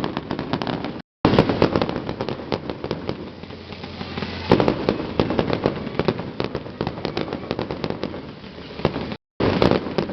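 Fireworks going off: dense fast crackling with heavier booms, the loudest about a second and about four and a half seconds in. The sound cuts out to silence twice, briefly.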